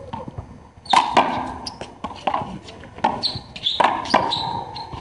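Handball rally: the hard rubber ball smacked by hand and slapping the concrete front wall and floor, a quick run of sharp hits, the loudest about a second in and again near the end, each ringing off the walls of the court. Sneakers squeak briefly on the concrete between hits.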